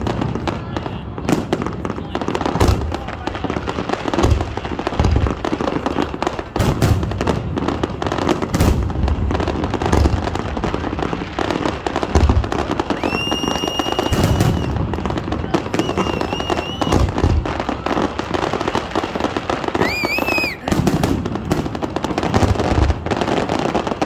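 Fireworks display going off continuously: repeated deep booms and sharp bangs every second or so. Three high, steady whistles sound in the second half.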